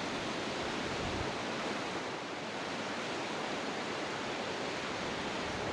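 Steady, even rush of moving water, with no separate splashes or knocks.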